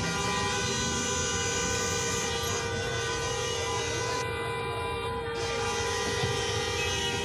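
A vehicle horn held down continuously, a steady chord of two close notes that does not let up, over low traffic rumble.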